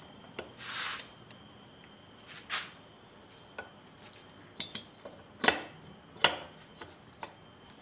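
Metal engine parts of a Mitsubishi TB43 two-stroke brush-cutter engine clinking and knocking as a piston is fitted onto the connecting rod and the cylinder is slid down over it. A brief scraping noise about a second in, then a run of sharp clicks, the loudest about five and a half seconds in.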